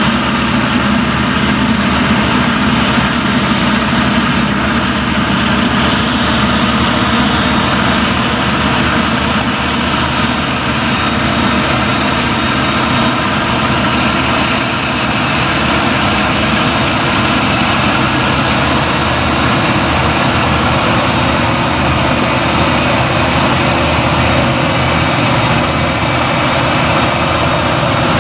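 Claas Jaguar 970 forage harvester's V8 engine and chopper running steadily under load while chopping standing millet, with the tractor towing the silage wagon running alongside.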